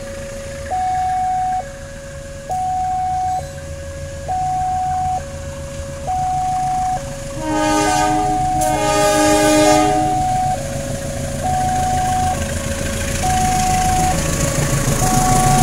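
A level-crossing warning alarm alternates steadily between two tones, switching about once a second. About 7.5 s in, the horn of the approaching KAI CC203 diesel-electric locomotive sounds two blasts, and the low rumble of the train grows louder toward the end.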